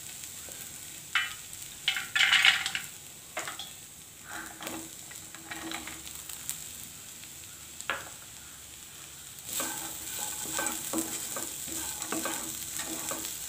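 Wooden spatula scraping and stirring chaya leaves in a nonstick kadai, with light sizzling, while cooked dal is added. At first there are a few separate scrapes and knocks, then steadier stirring strokes from about two-thirds of the way in.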